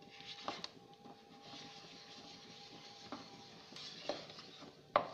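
Wooden spatula stirring melting jaggery in a kadhai, faint, with a few light knocks of the spatula against the pan.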